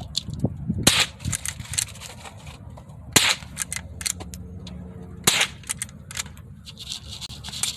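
.22 rifle shots: three loud sharp cracks about two seconds apart, with fainter pops in between.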